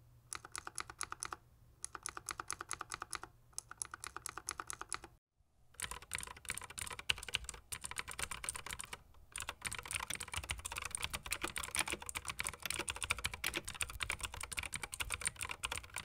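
A Razer Green clicky mechanical key switch pressed over and over in three quick runs of clicks. After a short break comes fast typing on a full mechanical keyboard, a dense stream of clicky keystrokes.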